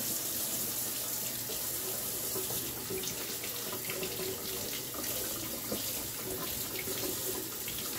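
Kitchen faucet running a steady stream into a stainless steel sink, the water splashing over a halved leek as it is rinsed under the tap.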